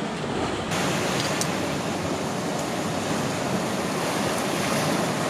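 Ocean surf breaking against shoreline rocks: a steady rush of waves that grows suddenly fuller and louder less than a second in.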